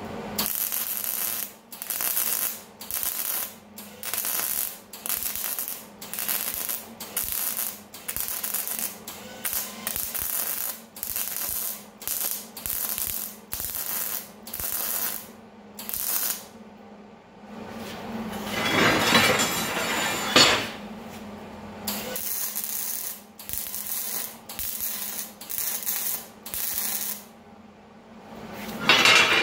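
MIG welder arc crackling and hissing in short trigger pulses, about one and a half a second, as a seam is laid on square steel tubing. A louder run of about two seconds comes about two-thirds of the way through.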